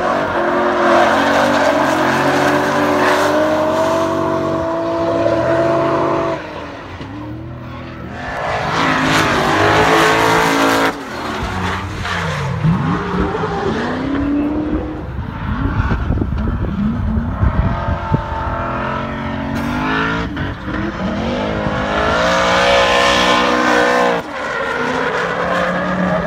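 Supercharged V8 engine of a BMW E36 drift car revving hard over several drift passes. Its pitch is held high, then falls and climbs again, and the tyres squeal as the car slides sideways.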